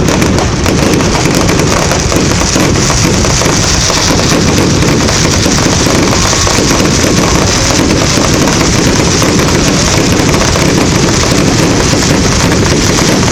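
Fireworks crackling in a dense, unbroken stream of rapid pops, loud and steady throughout.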